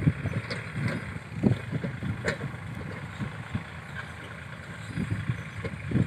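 Small farm tractor's engine running as it pulls a trailer stacked with rice-straw bales across the stubble field. Uneven low gusts of wind buffet the microphone, strongest at the start and near the end.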